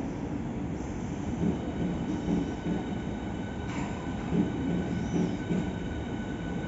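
Double-headed Hitachi Class 395 "Javelin" electric multiple unit moving through the station: its traction motors give a steady high whine, made of several held tones, over the low rumble of the wheels on the rails.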